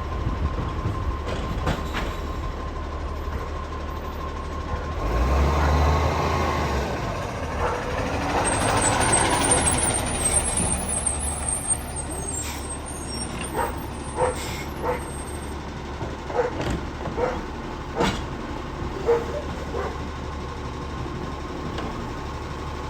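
Garbage truck running, with a surge of low rumble about five seconds in and a loud hiss a few seconds later. A run of sharp knocks and clunks follows through the second half.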